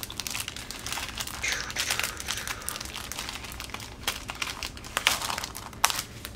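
Clear cellophane sleeve crinkling and crackling as hands work it open and slide the sticker sheets out, with a few sharper, louder crackles in the second half.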